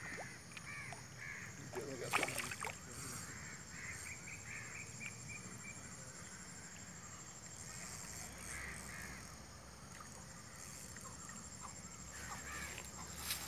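Crows cawing repeatedly in the background, faint and scattered through the stretch, with a brief knock or rustle about two seconds in.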